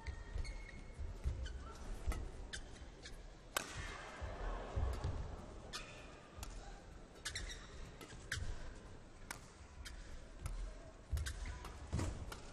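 A fast badminton rally: sharp racket strikes on the shuttlecock about once a second, with shoes squeaking and footsteps thudding on the court between shots.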